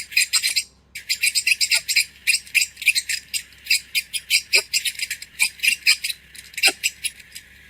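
Recording of a beetle's call: rapid, high-pitched pulsed chirping at about ten pulses a second, with a brief pause just before a second in.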